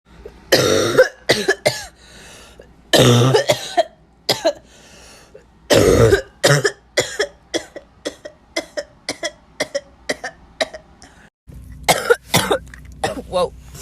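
Barking coughs from young women: a few loud, harsh coughs in bouts, then a quick run of short coughs about two a second. After a brief break about eleven and a half seconds in, another cough bout follows over a steady low hum.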